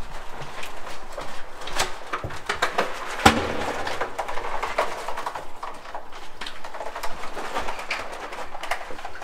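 Irregular small knocks and clicks of things being handled, with one sharper knock about three seconds in.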